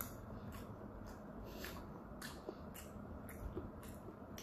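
Close-miked chewing of a dumpling, with soft wet mouth smacks about every half second.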